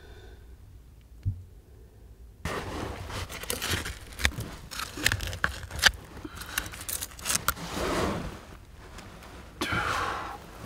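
A hand tool scraping and raking through loose privy-pit soil, with many irregular sharp clicks and clinks of grit and small debris. It starts about two seconds in after a quiet moment.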